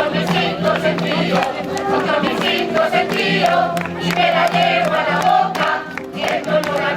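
A coro rociero singing a sevillana in several voices, over steady held low notes and many short, sharp percussive strikes.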